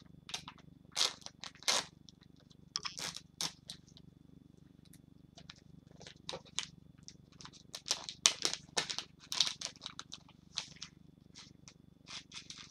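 Crinkling and rustling of the packaging as a lace necklace is unwrapped and handled, in irregular bursts, loudest about a second in and again around eight to nine seconds. Under it runs a steady low hum with a faint high whine, a persistent background noise of unknown source.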